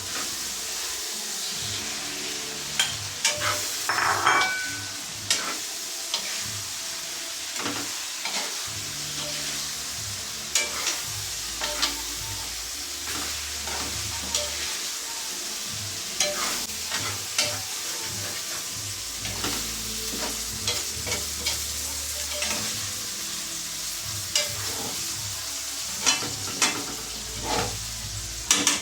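Binagoongang talong (eggplant with shrimp paste) sizzling in a frying pan while a utensil stirs it, with frequent clicks and scrapes against the pan over a steady hiss.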